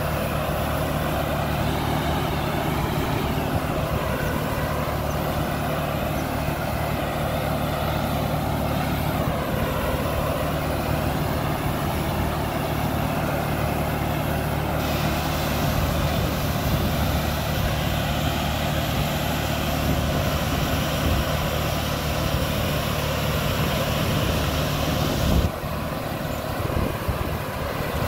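Kubota Neostar B2441 24 HP diesel tractor running steadily while its air-blast sprayer's fan blows spray mist: a steady engine drone under a broad rush of air. The rush grows brighter about halfway through, and a few seconds before the end there is a brief bump in level.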